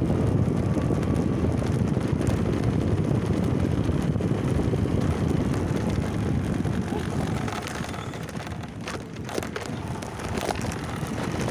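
Wind buffeting the microphone on a moving motorbike, a heavy low rumble with the ride's engine and road noise beneath it. It eases somewhat about eight seconds in.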